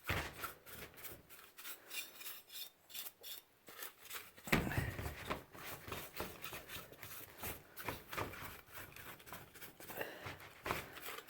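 Paint brush scrubbing greasy, alcohol-wet electrical components in quick, irregular strokes, a dry rubbing rasp, with one louder thump a little before halfway.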